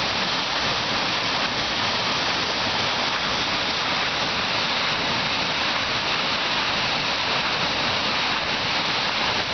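Water rushing and splashing steadily as it spills out of the foot of a turning Archimedes screw hydro turbine.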